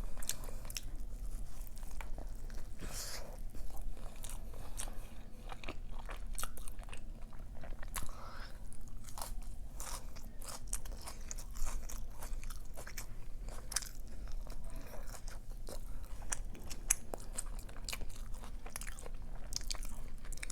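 Close-miked chewing and biting of a burrito, with many short crunching clicks and wet mouth sounds.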